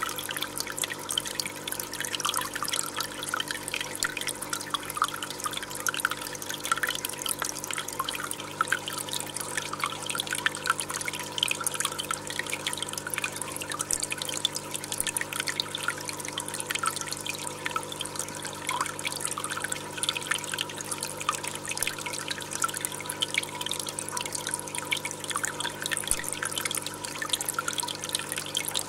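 Water trickling and dripping in a busy patter of small splashes, over a faint steady hum.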